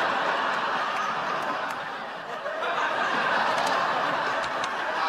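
Sitcom studio audience laughing at length after a punchline, easing off a little about halfway and swelling again.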